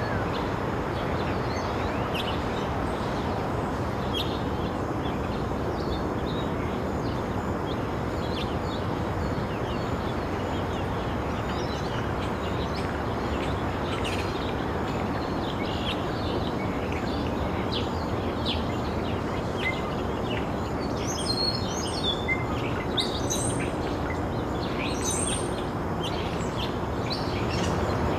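Outdoor ambience: small birds chirping over a steady background rush, the chirps coming thickest about three quarters of the way through.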